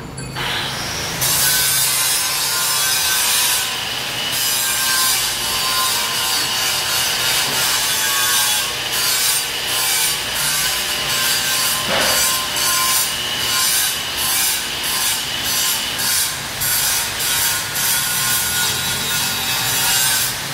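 Angle grinder running on steel, a steady whine under a harsh rasping noise. From about nine seconds in the rasp swells and fades about twice a second as the disc is worked back and forth over the metal.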